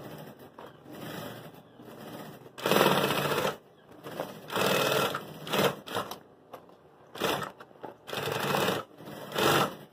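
Industrial straight-stitch sewing machine stitching in several short runs of about a second each, stopping and starting between them as a bag seam is fed around under the foot.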